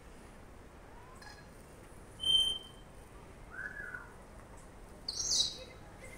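Parrots calling in a zoo aviary. There is a short steady whistle about two seconds in, a lower call that rises and falls near four seconds, and a high call sliding down in pitch a little after five seconds, which is the loudest, all over a faint hiss.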